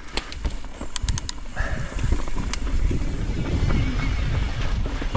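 Mountain bike riding a rough dirt trail: tyre rumble, rattling over bumps and wind on the microphone, louder about two seconds in as it picks up speed, with a few sharp clicks about a second in.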